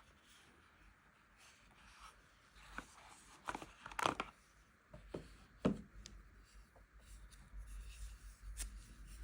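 Soft handling sounds of a smartphone and its packaging: light rustles and small taps, with a cluster of louder scrapes and clicks between about three and six seconds in.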